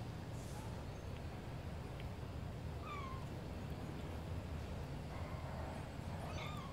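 Kitten meowing: two short, high mews that fall in pitch, about three seconds in and near the end, over a steady low hum.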